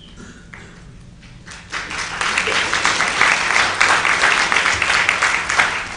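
Audience applauding in a hall, breaking out a little under two seconds in and dying away near the end.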